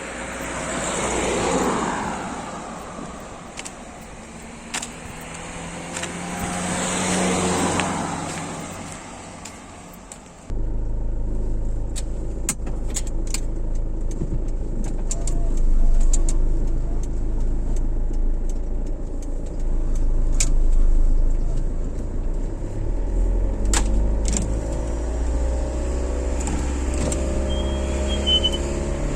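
Two vehicles swish past, each rising and fading with tyre and wind hiss. About ten seconds in the sound switches abruptly to the steady low rumble of a car's engine and road noise heard from inside the cabin, swelling a little twice, with scattered light clicks.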